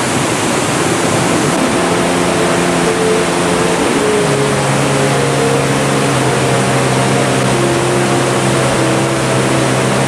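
Steady roar of a waterfall pouring into its plunge pool. Low sustained tones join in about two seconds in and shift in pitch a few times.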